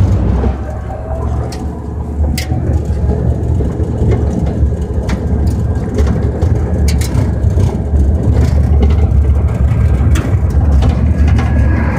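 Pickup truck driving on a dirt road, heard from the open bed: a steady, loud low drone of engine, road and wind buffeting the microphone, with scattered sharp knocks and rattles throughout.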